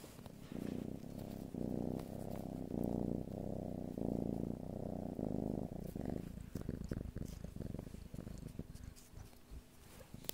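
Cat purring close to the microphone, the purr swelling and easing in pulses about once a second. After about six seconds it grows fainter among soft rustling and clicks.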